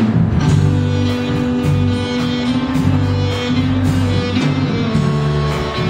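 Background music with guitar and a steady bass line.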